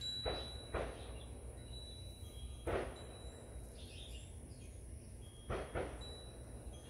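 Outdoor ambience: a steady low hum, with a few short sharp clicks or chirps and a faint high ringing tone that comes and goes.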